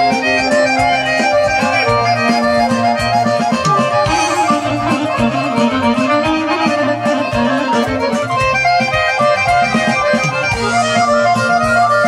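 Live folk dance music led by an accordion playing quick runs of notes over a steady bass beat: an instrumental passage with no singing.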